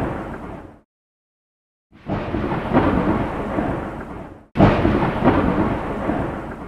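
Thunderstorm sound effect: thunder rumbling with rain, in separate rolls that each fade out. The first dies away within the first second, a second roll starts about two seconds in, and a third breaks in suddenly at about four and a half seconds.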